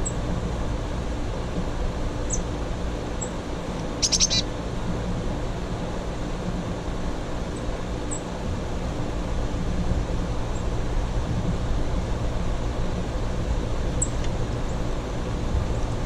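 Small songbirds calling: thin, high single chips every few seconds and a short run of rapid high notes about four seconds in, over a steady low rumble.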